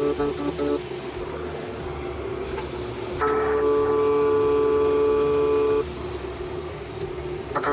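MIG welder laying short stitch beads on the steel braces of a tube-bender base: a steady hissing, humming arc with the wire feed running. One bead ends under a second in, a second runs from about three seconds in for about two and a half seconds, and a third starts right at the end.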